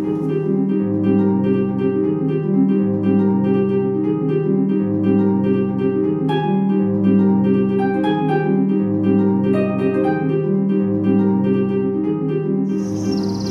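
Background music: plucked harp notes over a low bass line that repeats about every two seconds.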